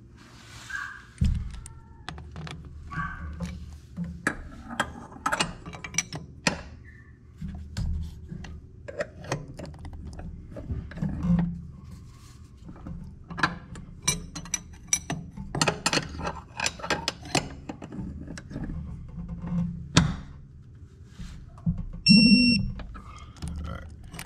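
Hand ratchet clicking in runs as it works the bolts of a transmission output flange, with metal clanks and knocks in between. A short metallic ring comes near the end.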